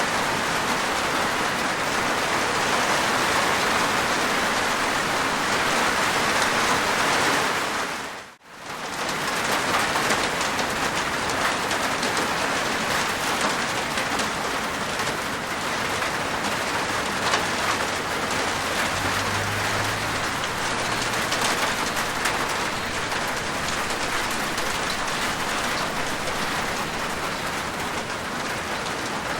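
Rain falling on a rooftop: a steady dense patter with individual drops ticking through it. The sound dips out briefly about eight seconds in, then comes back.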